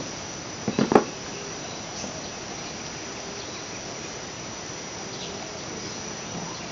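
Insects calling steadily as a thin high tone over a steady background hiss, with two brief sounds just before a second in.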